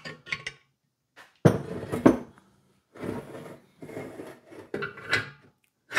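Metal clinking and scraping of a wrench and nuts being worked on a replacement stud in a VW air-cooled engine case. A few small clicks, a louder clank about a second and a half in, a run of clinks and scrapes in the second half, and another clank at the end.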